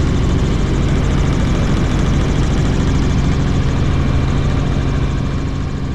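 Helicopter engine and rotor running steadily in flight, a constant low drone that eases slightly near the end.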